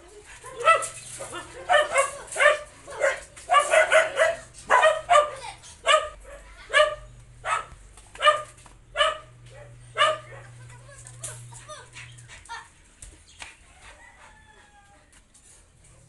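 Dog barking and yipping in a rapid series of short, sharp calls, one to two a second. The calls thin out and stop after about twelve seconds.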